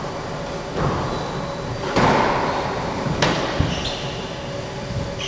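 Squash rally: a few sharp cracks of the ball struck by the rackets and hitting the walls, echoing in the enclosed court, the loudest about two seconds in. Near the end come short high squeaks, typical of court shoes on the wooden floor.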